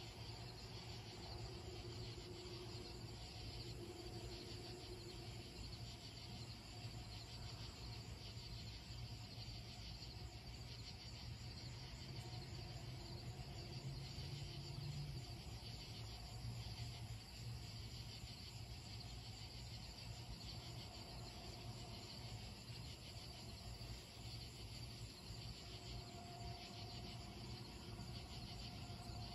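Night chorus of crickets and other insects, a faint, steady, high trilling, with a low hum underneath.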